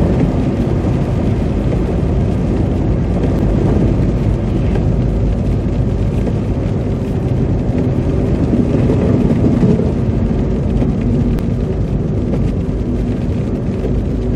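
Steady road noise heard from inside a moving car driving through slush: a low rumble of the tyres and the engine. A faint steady hum joins in a little past halfway.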